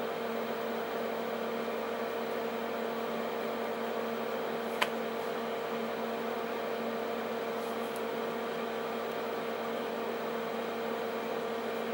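Steady hum and whir of the powered-up Denford Orac CNC lathe standing idle, its spindle stopped. One short click about five seconds in.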